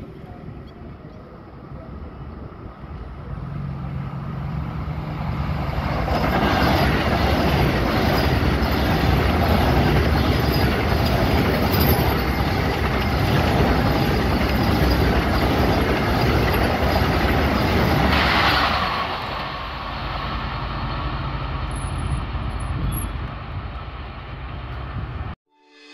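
Vande Bharat Express electric train set running past on the line. A rush of wheels on rail builds as it approaches and is loudest for about twelve seconds as the coaches go by. It then eases as the train recedes, and cuts off suddenly near the end.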